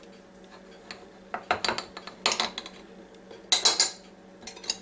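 A table knife clicking and scraping against a dish in three short clusters of sharp clicks, as butter is cut into pats.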